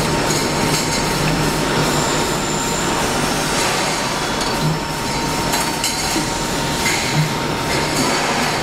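CNC steel pipe cutting machine running: a steady, loud mechanical noise with a constant whine.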